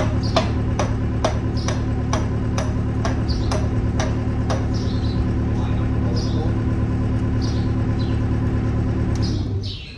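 Welder running with a steady electric hum and regular ticking about twice a second, as the cast-iron skidloader part is welded. The ticking fades halfway through and the hum cuts off just before the end. Birds chirp faintly.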